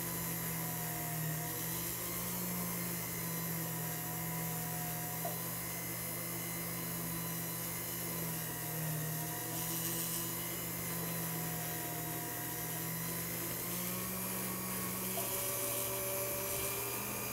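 Jeweller's rotary handpiece running a rubber abrasive wheel against the gold bezel around a sapphire, a steady motor whine that wavers slightly in pitch. It is the smoothing stage, taking scratches out of the bezel edge.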